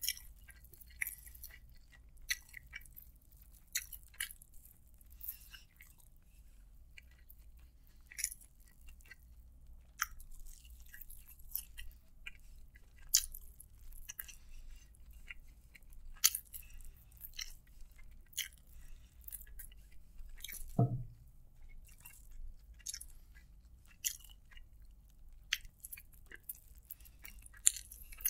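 Close-up chewing and wet mouth smacks of a person eating chicken biryani by hand, with sharp irregular clicks a few times a second. A brief low sound from the throat comes about two-thirds of the way through.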